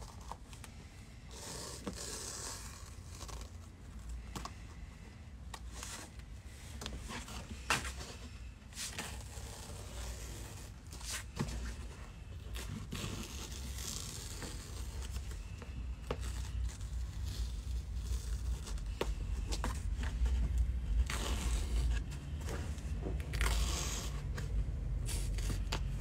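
Stretch suede being cut and torn away around the openings of a car's rear package tray: scattered scraping, tearing and crinkling of fabric against the board, with many sharp clicks. A low rumble grows louder in the second half.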